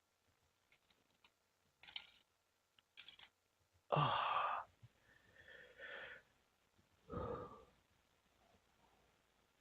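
A few short, breathy vocal sounds from a person, the loudest about four seconds in and another about seven seconds in.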